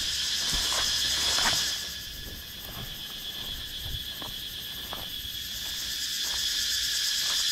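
Forest insects buzzing in a steady, high chorus that swells, fades back about two seconds in, and builds again near the end, with scattered short crackles.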